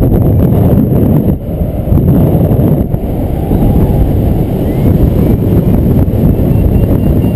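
Airflow buffeting the camera microphone on a paraglider in flight: a loud, continuous low rumble that dips briefly about a second and a half in.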